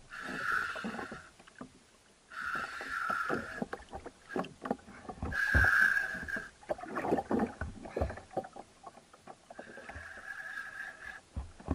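Spinning reel's drag buzzing in four bursts of about a second each, the loudest about halfway through, as a hooked amberjack pulls line off the reel. Scattered knocks in between.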